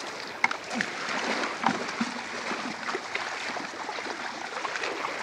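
Shallow seawater washing and splashing under bare feet, a steady wash with a few sharp knocks.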